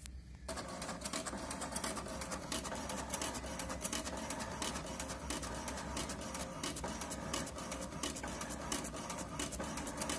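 Inkjet all-in-one printer making a copy: the print-head carriage shuttles back and forth with rapid ticking and a steady whir as the paper advances. It starts about half a second in.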